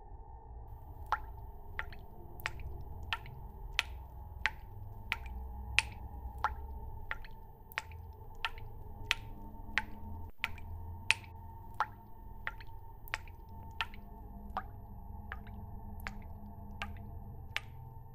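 Water dripping in a slow, even rhythm, about three drops every two seconds, over a low steady hum.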